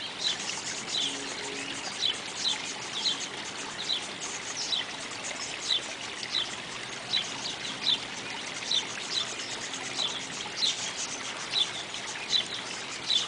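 Small birds chirping, short falling chirps about once a second or a little faster, over a steady hiss of trickling stream water.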